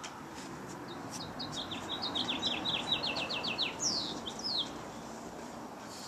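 A songbird singing a single song: a fast run of short, falling notes that speeds up into a trill, ending in two longer falling slurs.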